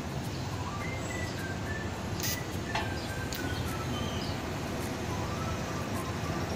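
TIG welding arc from a new WP-26 argon torch on a metal plate: a steady hiss and hum at an even level, the torch working normally.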